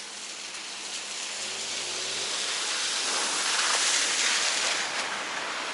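Steady hiss of tyres on wet asphalt, swelling to its loudest about four seconds in and easing off near the end.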